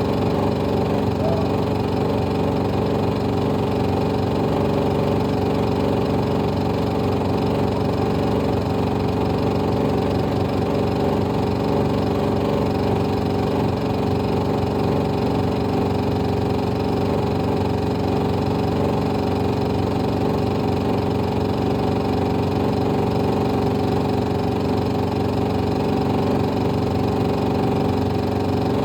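A motor running at constant speed, a steady unbroken hum holding several steady tones.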